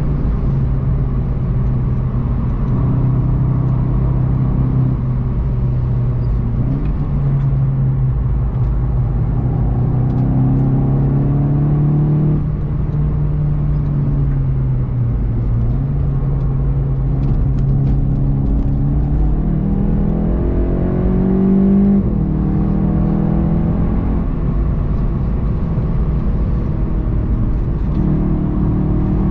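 VW Golf 7 GTI TCR's turbocharged 2.0-litre four-cylinder running hard at track speed, heard from inside the cabin over steady road and tyre noise on a wet surface. The engine note climbs and then drops abruptly with gear changes, about twelve seconds in and again about twenty-two seconds in.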